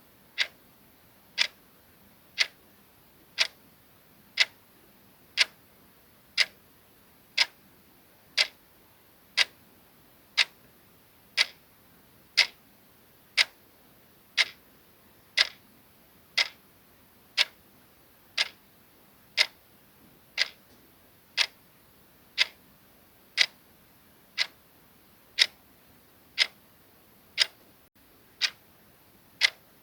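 Clock ticking sound effect: a single sharp tick once a second, steady and even.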